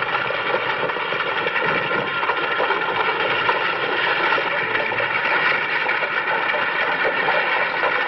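Horse-drawn stagecoach under way, a steady dense rumble of the team's hooves and the rolling coach.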